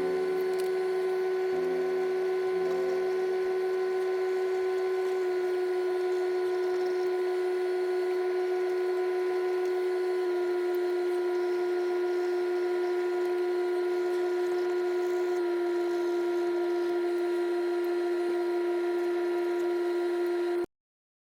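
Background music made of a held electronic drone tone with overtones, its pitch stepping down slightly about every five seconds and cutting off suddenly near the end.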